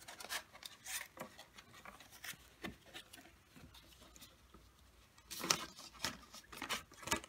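Stiff card strips being handled and slid against each other, with light clicks and rustles as a brass split pin is pushed through the card to make a pivot. The rustling is loudest about five and a half seconds in.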